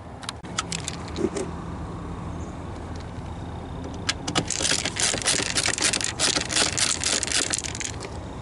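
Hand screwdriver turning out T30 Torx screws along the cowl panel. A few light clicks come first, then from about four seconds in a dense run of rapid clicking and scraping as the screw is turned.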